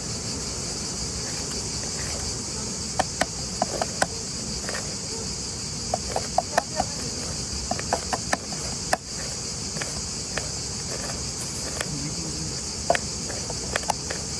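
Steady chorus of crickets, with scattered sharp clicks and ticks over it.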